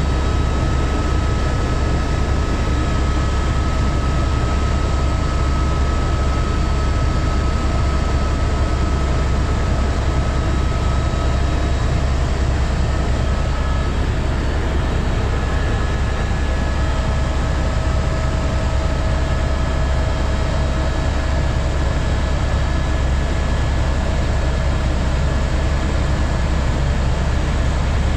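Helicopter cabin noise in flight: a steady, loud, low drone from the rotors and engine, with a few faint steady whining tones over it. One higher whine fades out about halfway through while a lower one grows stronger.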